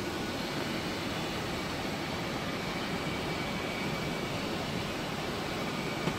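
Steady flight-deck noise of an Airbus A330 in descent: an even rush of airflow and ventilation with a faint high steady whine, and a single short click near the end.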